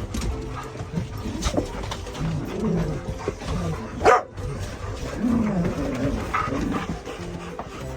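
Dogs giving low, wavering whines and grumbles, with one sharp, loud bark about halfway through.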